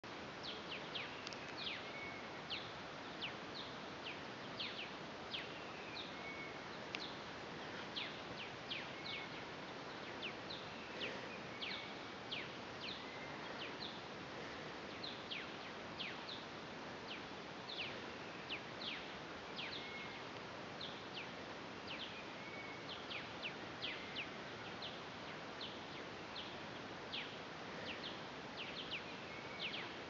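Birds calling in the bush before dawn: many short, sharp notes that drop steeply in pitch, one or two a second, with a few softer short whistles between them, over a steady hiss.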